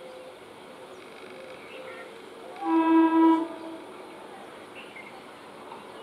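Horn of an approaching Indian Railways EMU local train sounding one steady blast of about a second, roughly halfway through, over a faint steady background.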